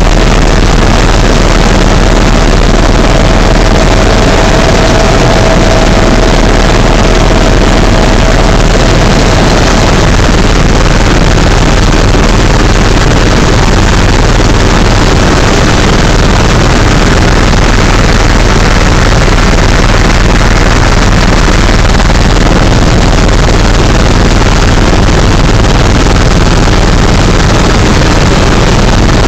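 Helicopter in cruising flight, heard from on board: loud, steady engine and rotor noise. A thin steady whine in it stops about a third of the way through.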